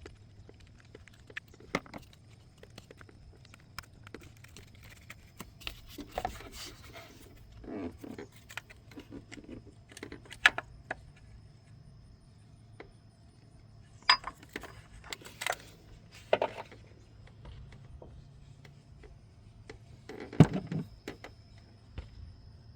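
Hand tools and loose bolts clinking against metal while the bolts holding the engine's VVT solenoids are undone and the solenoid is worked out: irregular light taps and clicks with a few sharp clanks.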